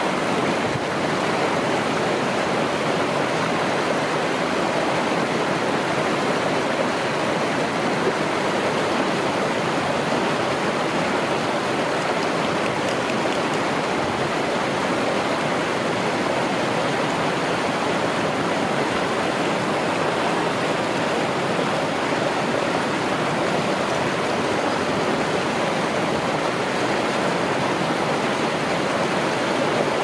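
River water rushing steadily over rocks, a loud, even rush.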